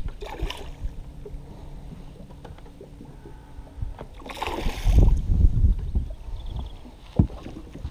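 Low rumble of wind and movement in a small aluminium fishing boat, with a faint steady hum for the first few seconds, a brief hiss about four and a half seconds in, and a sharp knock near the end.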